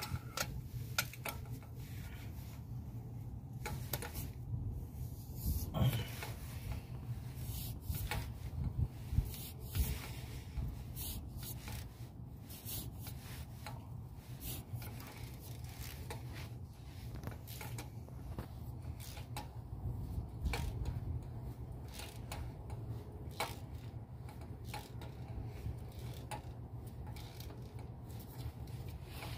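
Ratchet wrench on a socket extension clicking in short, irregular runs as a spark plug is worked loose from a cylinder head, with metal tool knocks in between. A steady low hum runs underneath.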